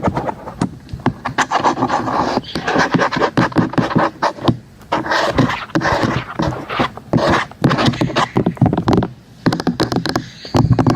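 Rapid ASMR tapping and scratching on hard objects: dense runs of clicks and rubbing, broken by short pauses about four and a half seconds in and again near nine seconds.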